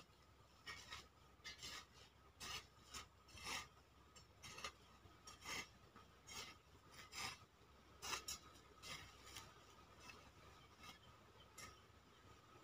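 Hand hoe chopping and scraping dry soil in irregular strokes, about one or two a second, stopping shortly before the end.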